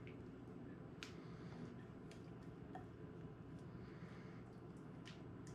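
Faint scraping with a few light clicks, as a spatula scrapes mashed sweet potato out of a mixing bowl into a foil baking pan.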